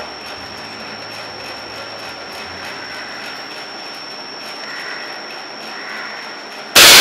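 A single loud, sharp air rifle shot near the end, its report dying away over about a second in the range hall. Before it, only steady hall background with a thin high whine.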